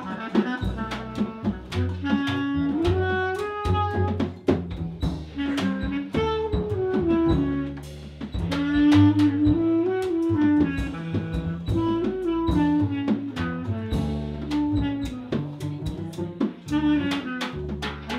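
Live jazz: a bass clarinet plays a stepwise melody over a low bass line, with a small drum kit and cymbals keeping up a busy rhythm of strokes.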